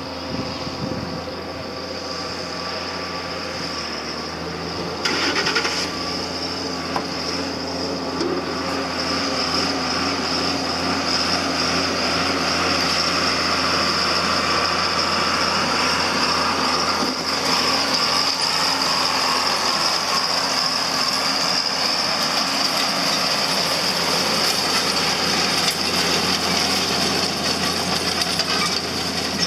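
Tractor engine running steadily under a field load, with a steady high whine over it; it gets louder about five seconds in.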